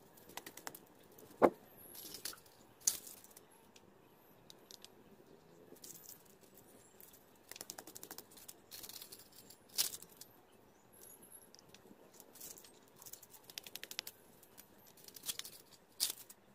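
Hands working potting soil in a thermocol (polystyrene foam) cup: soft rustling of crumbly soil, with scattered sharp clicks and taps of fingers on the cup. The sharpest click comes about a second and a half in.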